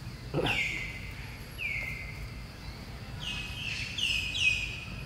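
Five short, high-pitched animal calls over steady outdoor background noise. Each call drops sharply in pitch and then holds for a moment; the last three come close together near the end.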